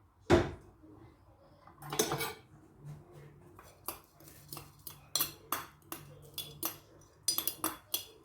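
Kitchen utensils knocking and clinking against dishes: a heavy knock about a third of a second in, then a series of sharp clinks, several in quick succession near the end.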